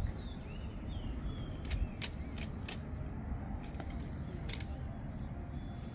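Spinning fishing reel ratcheting and clicking while a hooked fish is played and reeled in: a quick run of sharp clicks around the middle, then one more a little later.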